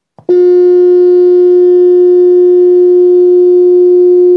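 Loud, steady 358 Hz test tone from an amplifier speaker, played from a phone tone generator to drive a fiddle top plate at its mode 5 resonance so the sprinkled particles form a Chladni pattern. The tone starts abruptly about a third of a second in and holds without changing.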